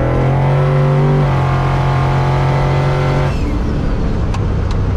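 Twin-turbo LS V8 engine under acceleration, its note rising in pitch and then holding steady, cutting off suddenly a little over three seconds in, leaving road and wind noise.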